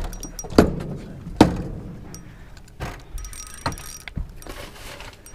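Spinning reel being cranked against a hooked smallmouth bass, its gears and mechanism clicking and whirring faintly. Two sharp knocks come in the first second and a half, louder than anything else.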